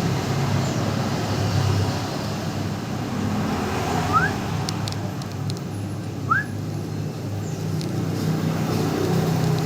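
Lovebird giving two short rising chirps about two seconds apart, over a steady low rumble.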